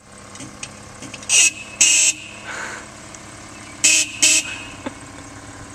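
Car horn honked in short toots: two quick beeps, then two more about two seconds later.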